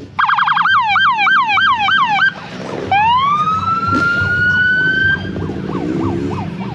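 Electronic siren of a Ford Explorer police interceptor: a quick run of falling chirps, about three a second, then a long rising wail that levels off and cuts off about five seconds in, with fainter chirps after it.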